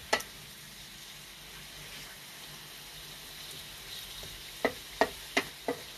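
Pork sautéing in a pan with onion and garlic, a steady sizzle, with a cooking utensil stirring and knocking against the pan: one sharp knock at the start and four quick knocks in the last second and a half.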